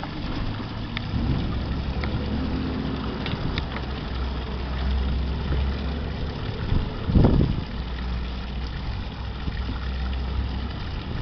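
Steady low rumble of an idling boat engine, with a bilge outlet's stream splashing into the harbour water as the bilge is pumped out. A brief louder gust of wind noise comes about seven seconds in.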